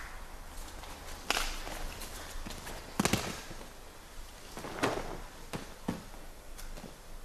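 Bare feet stepping and shuffling on gym mats, with scattered thumps and cloth rustles as a partner is taken down onto the mat; the sharpest thump comes about three seconds in.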